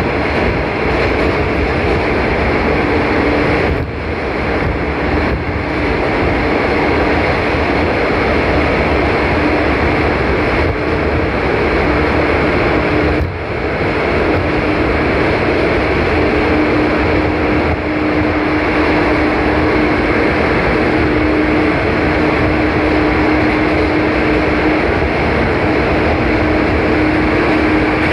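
JR 415 series electric train running at steady speed, heard from inside the car: a loud, dense running noise of wheels and running gear with a steady hum, closed in by a tunnel. The loudness dips briefly twice, about 4 and 13 seconds in.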